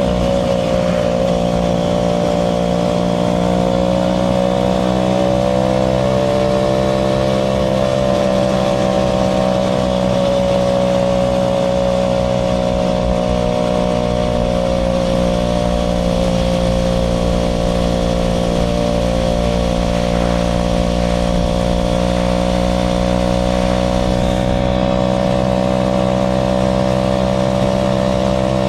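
Aprilia RS4 125's single-cylinder four-stroke engine running at a steady pitch on the move, the revs rising and falling only slightly.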